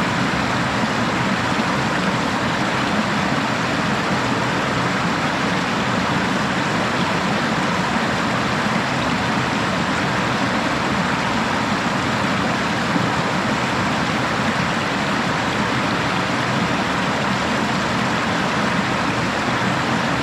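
Waterfall with a steady, unbroken rush of falling water.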